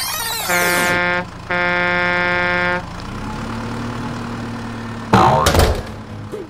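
Two blasts of a truck air horn, the second longer, over a steady engine hum. About five seconds in comes a loud crash with a falling sweep, as the toy dump truck tips over.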